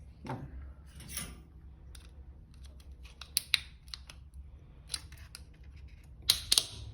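Small screwdriver pressing and prying at the plastic retaining clips of an e-bike's AWD selector switch to push the switch out, making a string of light plastic clicks and scrapes. There is a sharp click about three and a half seconds in and the loudest clicks near the end.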